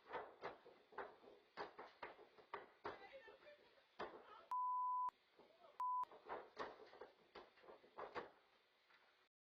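Indistinct talking, cut twice by a steady 1 kHz censor bleep: one about half a second long near the middle, and a short one about a second later. The sound cuts off abruptly shortly before the end.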